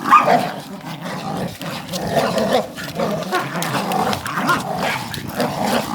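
Dogs growling and scrapping as they tug at and tear a t-shirt between them.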